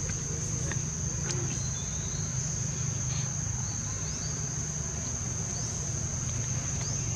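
Insects buzzing in one steady, high-pitched drone, over a steady low hum, with a few faint clicks.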